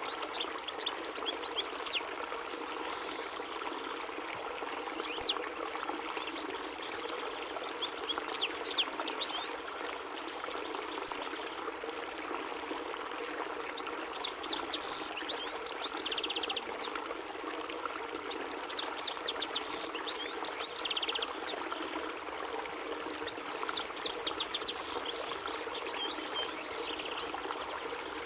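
European goldfinch singing: bursts of rapid twittering chirps every few seconds, some ending in a short buzzy trill, over a steady rushing background noise.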